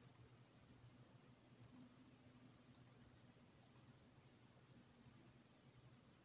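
Near silence: faint room tone with a low hum, and pairs of tiny high clicks roughly once a second.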